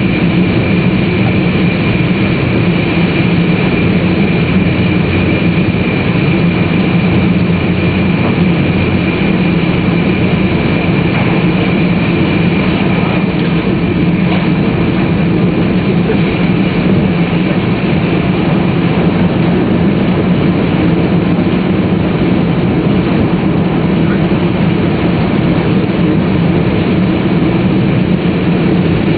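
Steady interior running noise of a Tōhoku Shinkansen Hayate train at speed: a low, even rumble of wheels on rail and traction motors, with a thin, steady high tone over it.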